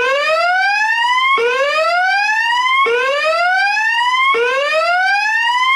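Voice-evacuation fire alarm speakers sounding their whoop alert tone: a rising sweep that repeats about every second and a half, four times over, between the recorded evacuation messages. It is the emergency signal that the system's voice message announces.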